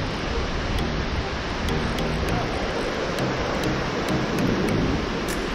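Waves breaking and washing up a sandy beach: a steady rush of noise with a deep rumble underneath.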